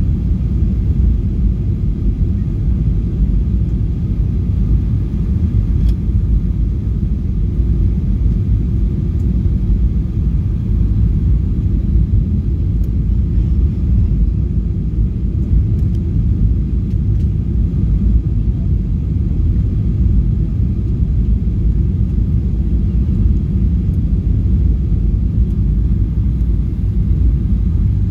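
Steady low rumble of engine and airflow noise heard inside the cabin of a Ryanair Boeing 737-800 (737-8AS) descending on final approach to land.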